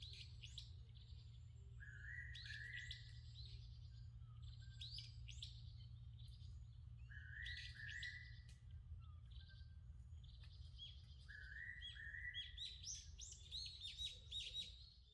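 Faint birdsong: a bird repeats a short phrase about every five seconds, two rising notes followed by a quick run of high down-slurred chirps, with other scattered chirps between, over a steady low rumble.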